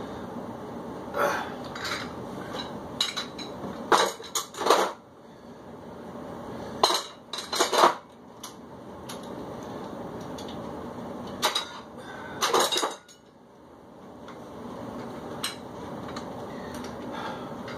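Metal dumbbells clanking and clinking as they are set down and picked up. It comes as a string of sharp metallic knocks in a few clusters, each a quick pair or triple of hits.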